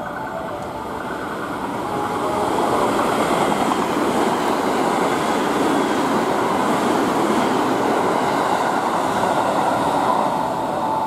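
Rapid electric commuter train running through the station at speed without stopping, its wheels on the rails making a loud rushing rumble. The noise builds over the first few seconds, holds while the cars pass, and eases off near the end.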